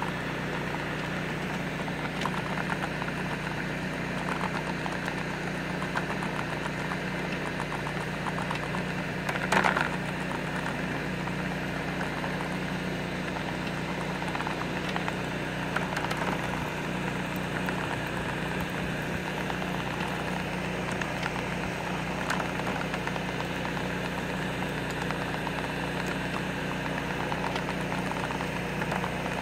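Steady hum of an idling engine, even and unchanging, with one brief louder knock about ten seconds in.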